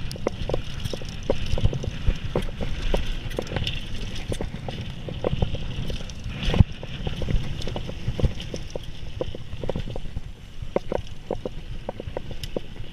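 Mountain bike riding down a dirt trail: tyres rolling over the ground with a steady low rumble, and frequent irregular knocks and rattles from the bike over bumps.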